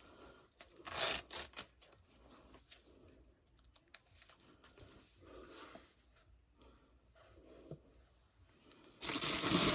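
Packaging being handled and torn open: short bursts of rustling and tearing about a second in, scattered light clicks and rubbing, and a louder stretch of crinkling near the end.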